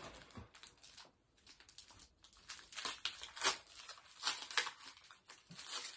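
Soft crinkling and rustling of packaging as small gift items are handled, coming as a scatter of short crackles and light taps.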